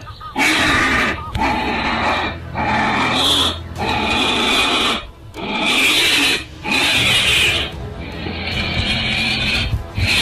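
Cobra hissing and mongoose growling in a standoff, in repeated harsh bursts about a second long with short breaks between them, over background music with a steady low drone.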